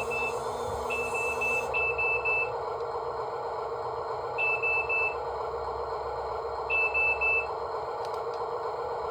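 An excavator's warning beeper sounding in short groups of about three high beeps, every two to three seconds, over a steady mechanical hum.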